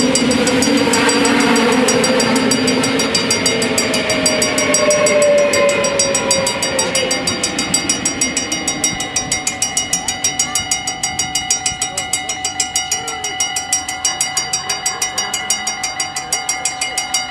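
Mechanical bells at a Dutch level crossing ringing in rapid, regular strokes while a VIRMm double-deck intercity train passes. The train's running noise, with a falling tone, fades about halfway through, leaving the bells ringing on their own.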